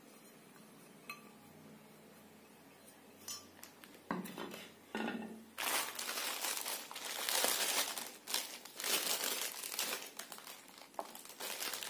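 A few knocks as an incense holder is set down on a steel plate, then a clear plastic packet of incense cones crinkling steadily as it is opened and handled, from about five and a half seconds on.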